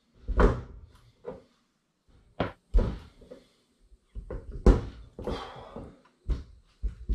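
Plastic bungs being pushed by hand into glass sparkling-wine bottles: a series of irregular knocks and thumps as the bottles are pressed and jostled on the worktop.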